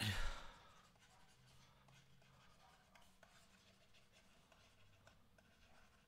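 Near silence with faint, scattered ticks and scratches of a stylus handwriting words.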